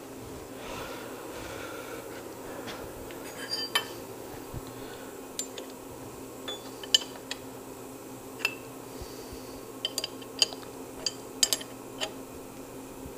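Light metallic taps and clinks at irregular intervals as a milling-machine vise is bumped into alignment on the table, over a steady hum.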